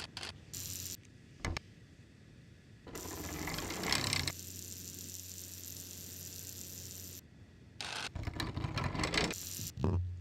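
Homemade foley for WALL-E's mechanisms: a few sharp mechanical clicks, then a whirring swell about three seconds in over a steady low hum that stops about seven seconds in, another stretch of whirring rattle around eight seconds, and a click near the end.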